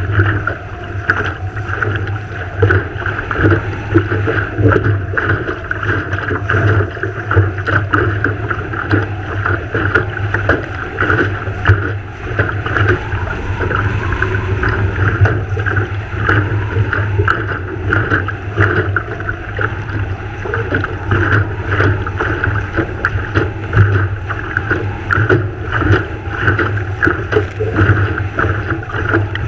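Water rushing and slapping against the hull of a Farr 3.7 sailing skiff under way, with wind buffeting the microphone.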